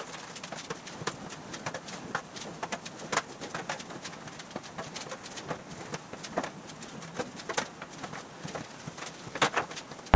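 Thin aluminum sheet being worked back and forth through an English wheel, giving irregular light clicks and tinny taps as the panel flexes and shifts, several a second, with a few louder clacks near the end.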